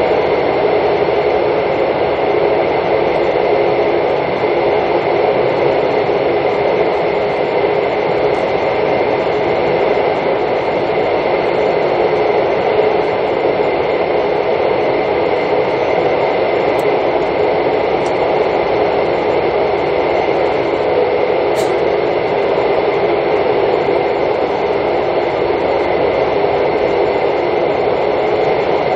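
Steady running noise of a Mugunghwa-ho passenger train heard inside the carriage: an even rumble and rush of the train moving along the track, with no breaks.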